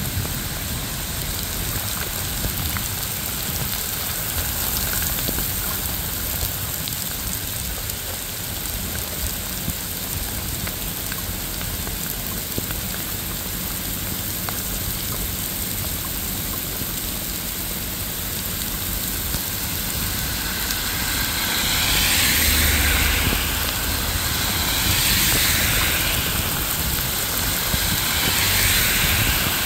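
Steady rain falling. Near the end come three swishing hisses, about three seconds apart.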